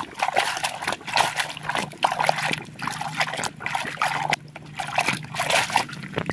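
Muddy water sloshing and splashing in a plastic bucket as a hand scrubs a toy truck clean in it, in irregular bursts.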